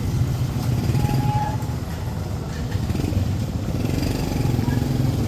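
Motorcycle engine running steadily with a low rumble, slightly quieter in the middle and louder again near the end.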